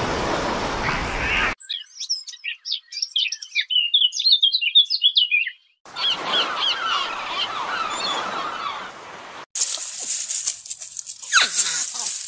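Songbirds chirping and singing in quick, high notes, heard in several short clips that cut in and out; it opens with about a second and a half of loud rushing noise, and near the end a couple of long calls slide steeply down in pitch.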